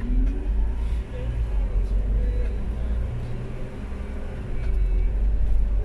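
Steady low rumble of a vehicle's engine and tyres, heard from inside the cab while it drives along in traffic.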